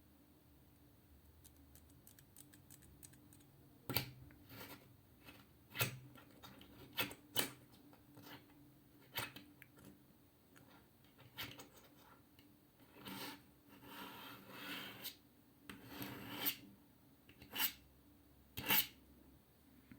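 Metal hairpin scraped and tapped against a hard surface: a string of sharp clicks and short rasping scrapes, with a longer scraping stretch a little past the middle.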